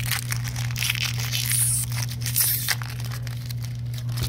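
Foil booster-pack wrapper crinkling and tearing as it is pulled open by hand, in many quick irregular crackles, over a steady low hum.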